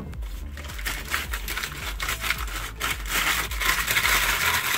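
Clear plastic being crumpled and crinkled in the hands: a dense crackling with many small clicks, louder from about three seconds in.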